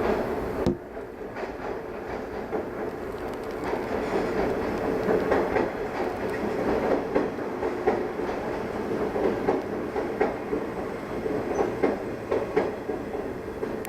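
Train moving over the station tracks, a steady rumble with irregular clicks of wheels over rail joints. The sound drops abruptly less than a second in, then carries on at a lower level.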